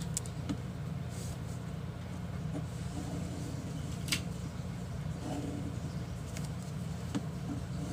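Steady low background rumble with light pen-on-paper sounds as a pen draws a box on a worksheet; a faint click about four seconds in and another near the end.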